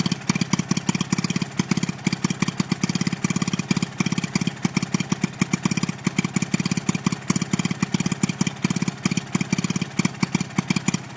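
Stuart Turner two-stroke stationary engine running its 50 V DC generator, with a rapid, somewhat uneven beat of firing strokes. It is generating, lighting a board of bulbs.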